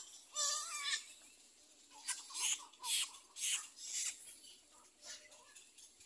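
Little egret chicks calling in the nest: a short wavering call about half a second in, then a run of about five harsh, raspy calls in the middle.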